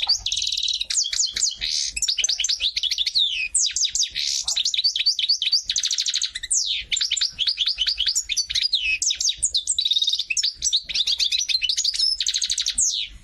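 A bird singing: one long, fast song of rapid trills and sweeping whistled notes that starts and stops abruptly.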